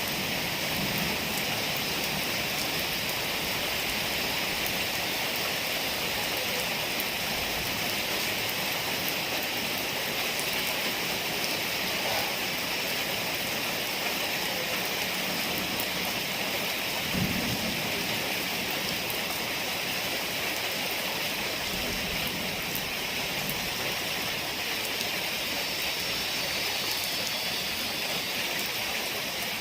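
Heavy rain falling steadily in a storm, an even hiss with a brief low thump a little past halfway.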